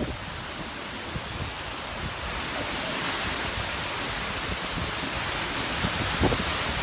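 Strong hurricane wind blowing, a steady rush that grows louder about two seconds in.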